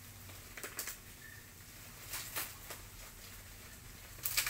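Plastic wrapping and tape being cut and handled around a plant's wrapped root ball, with short crinkling scrapes about a second in, just past two seconds and again near the end.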